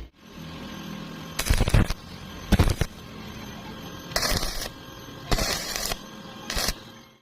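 Arc welding in five short bursts of crackle, each under half a second, as quick tack welds are struck over a steady hum.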